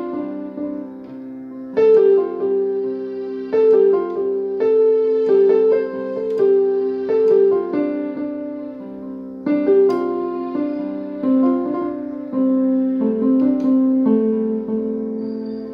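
Background piano music, slow and gentle, with fresh chords struck about every two seconds that ring and fade.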